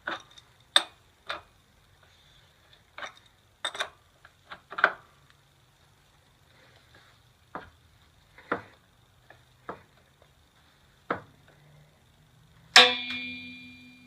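Metal wrenches clinking on the rear axle nut as it is tightened by hand: about a dozen sharp, irregular clinks, then near the end one loud metal clang that rings on for over a second.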